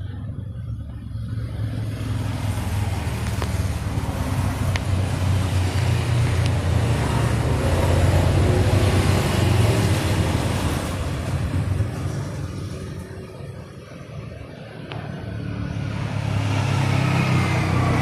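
Motor vehicles passing close by: a low engine and road rumble swells over several seconds and fades, then a second vehicle approaches near the end.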